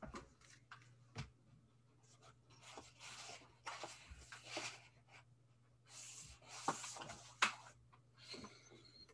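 Faint rustling and scraping of paper and drawing tools being handled on a desk, in two stretches, with two light knocks about seven seconds in, over a faint steady hum.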